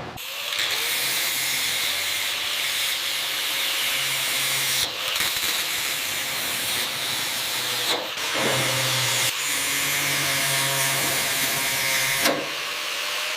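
A steady, loud hiss from a cleaning jet or blower, in three stretches that break off briefly about 5, 8 and 12 seconds in.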